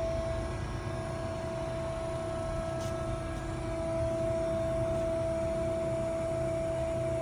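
Carell 305 CNC angle roll running, its drive giving a steady hum with a constant whine over a low rumble.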